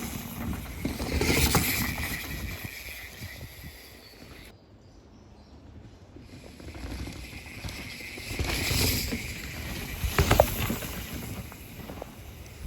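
Mountain bikes ridden fast past on a rooty dirt trail, tyres rumbling and skidding over dirt and roots with the bikes rattling. One rider passes about a second in, and a second pass builds later with a few sharp knocks about ten seconds in.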